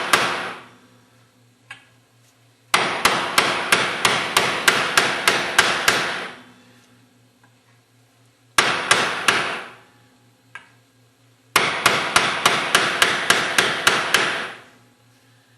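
Hammer tapping on a socket to drive an oil wiper seal into an aluminum hydraulic pump cap, worked around the edges to seat it squarely. Quick runs of light, ringing taps, about four a second, come in four groups with short pauses between.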